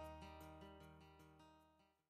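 Closing background music fading out to silence: quick repeated notes, about five a second, over a held low tone.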